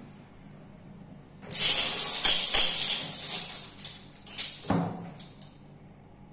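A loud, bright jingling rattle lasting about four seconds, with a dull thump near the end.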